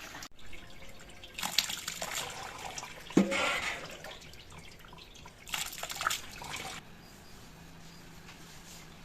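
Fermented rice in malt water being handled by hand: three bouts of splashing and dripping liquid, the middle one the loudest, then only faint trickling.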